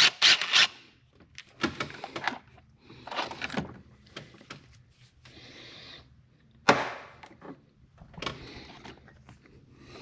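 Hand tools and metal and plastic engine parts being handled under the hood: scattered clicks, scrapes and knocks, with the sharpest knock about two-thirds of the way through.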